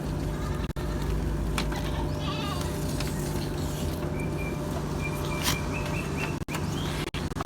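Etawa goats bleating over a steady low hum.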